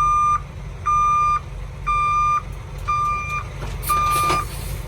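Semi truck's backup alarm beeping about once a second, each beep about half a second long, as the tractor reverses under the trailer, over a steady diesel engine rumble. A short hiss sounds near the end.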